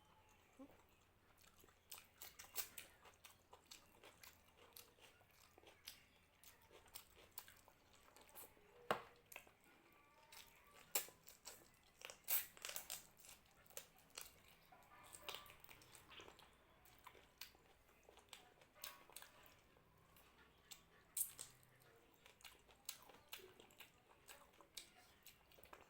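Close-up eating sounds of rice and mutton curry: chewing with many short wet mouth clicks, a few sharper ones standing out.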